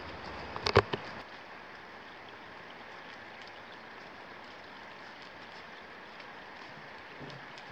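Steady hiss of rain falling in a forest. A short cluster of sharp clicks and knocks comes about a second in, and faint low thuds of footsteps sound near the end.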